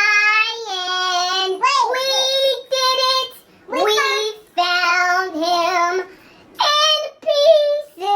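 A child singing in short phrases of high, held notes with brief breaks between them.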